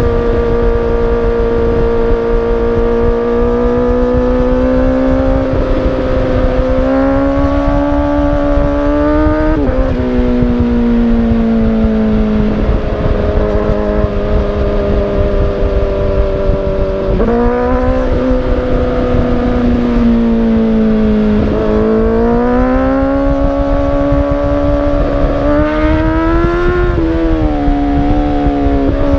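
Inline-four exhaust note of a 2017 Honda CBR1000RR Fireblade through a Toce Performance Razor Tip exhaust while riding at highway speed. The pitch climbs slowly and then falls sharply at an upshift about ten seconds in. It jumps back up around seventeen seconds, dips, and climbs again before dropping near the end.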